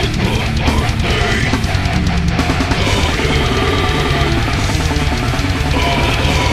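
Brutal death metal recording: rapid, dense drumming with distorted guitars and bass, loud and unbroken.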